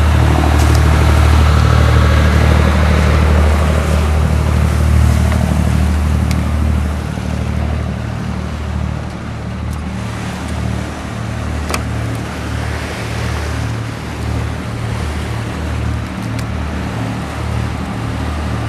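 Motor boat's engine running steadily under way, a low drone, with water washing along the hull. The drone eases a little about seven seconds in.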